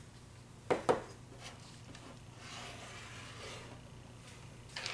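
Small board-game pieces knocking on the game board, two sharp clicks in quick succession about a second in, followed by soft rubbing and sliding as a piece is moved along the track.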